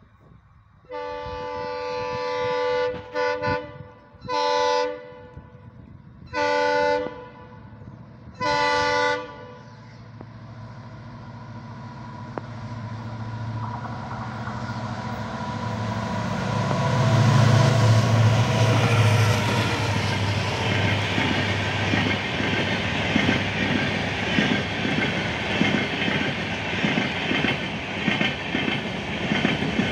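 Approaching diesel locomotive sounding its air horn: one long blast, then a quick double toot and three more short blasts. The engine then runs past, loudest a little after halfway, followed by the passenger coaches clattering rapidly over the rail joints.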